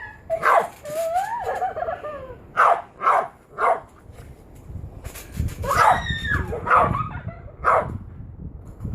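A dog whining in a wavering pitch, then barking in short, sharp yips: three quick ones a little under three seconds in, and another run about six to eight seconds in.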